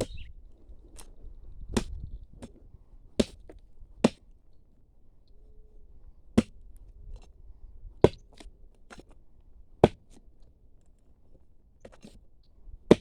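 A small hand digging tool chopping into hard soil and roots: sharp irregular strikes, one every second or two, some much louder than others. These strikes work loose a buried metal-detector find that is held fast by the roots.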